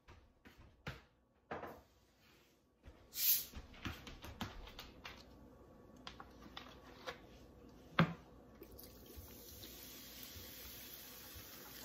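Cola poured from a bottle into a metal pot onto a raw chicken: a steady pour in the last few seconds. Before it come clicks and knocks of the bottle being handled, a loud hiss about 3 s in, and a sharp knock about 8 s in.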